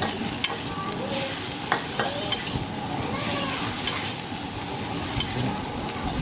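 Rice noodles and shrimp sizzling in a thin, non-non-stick wok as a metal spatula stirs and tosses them, with scattered clicks and scrapes of the spatula against the wok.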